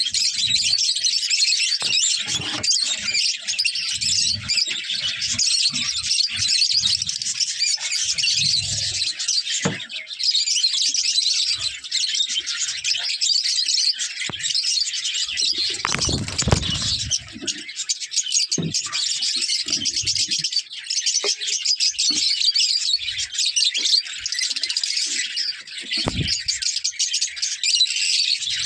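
Many lovebirds chattering and chirping without pause, dense and overlapping. Scattered low thumps sound beneath the chatter, the loudest about sixteen seconds in.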